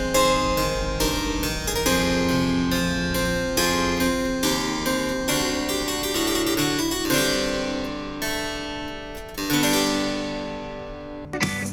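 Classical harpsichord music played back through a small Bluetooth speaker for a sound test. It fades out near the end, and a different, guitar-led track begins just as it stops.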